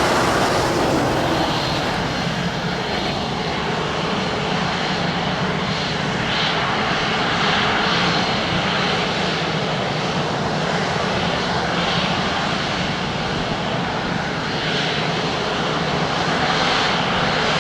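Airliner jet engines running with a steady, even noise.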